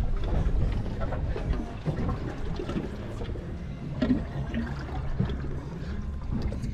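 Wind rumbling on the microphone over water sloshing against a boat's hull at sea, a steady low rumble without distinct events.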